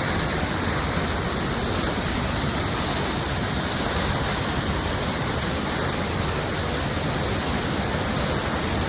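Waterfall: heavy rushing water, a steady, even noise with no let-up.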